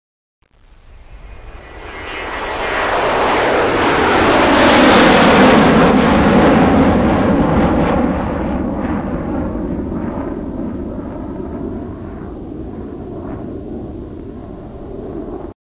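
Aircraft flying past: its engine noise swells to a peak about five seconds in, dropping in pitch as it passes, then fades away slowly and cuts off suddenly near the end.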